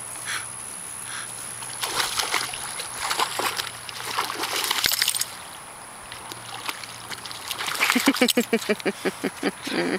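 A dog splashing through shallow lake water, a few seconds of churning and splashing. Near the end comes a quick, even run of short pulsed sounds, about five a second.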